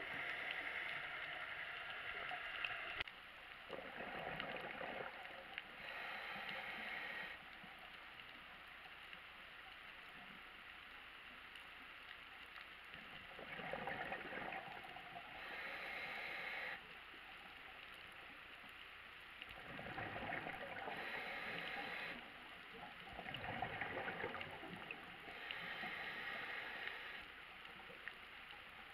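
A scuba diver breathing through a regulator underwater, about five slow breaths. Each inhale is a hiss through the regulator, and each exhale is a gurgling rush of bubbles.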